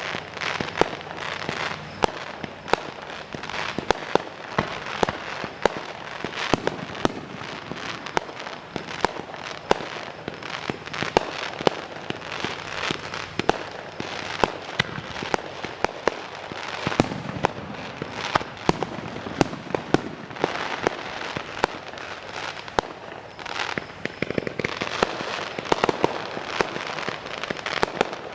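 Fireworks going off: a rapid, irregular run of sharp bangs and pops, several a second, over continuous crackling.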